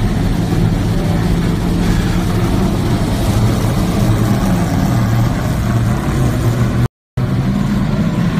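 Stock car V8 engines running steadily at low revs on pit road, a deep, even rumble that cuts out for a moment about seven seconds in.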